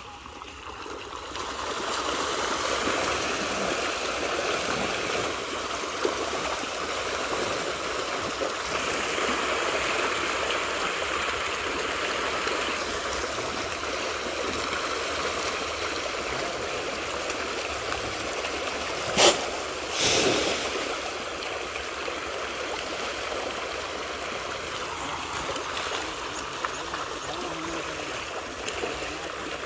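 A dense shoal of pond fish thrashing and splashing at the surface in a feeding frenzy, a continuous churning splash like running water that builds up over the first couple of seconds. About two-thirds of the way through, two sharp knocks come about a second apart.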